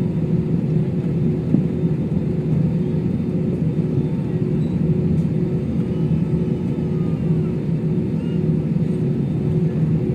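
Jet airliner cabin noise before take-off: the engines running at low power give a steady low rumble with a constant hum tone.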